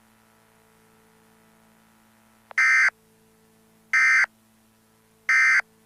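Emergency Alert System end-of-message signal: three short bursts of digital data tones, each about a third of a second long and about 1.3 seconds apart, beginning a little over halfway through, over a faint steady hum.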